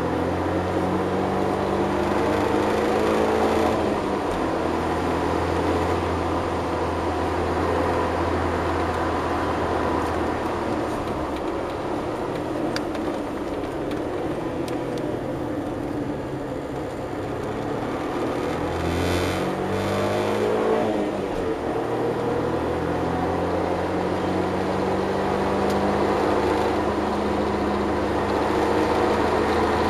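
Suzuki Cappuccino's turbocharged 657 cc three-cylinder F6A engine at full track pace, heard from inside the cabin. The revs climb repeatedly through the gears, with shifts breaking the climb, and ease off briefly about halfway through before the engine pulls hard again.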